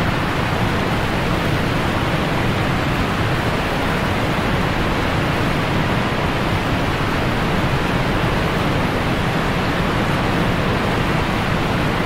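Automatic car wash spraying water over a car: a steady, even rushing hiss.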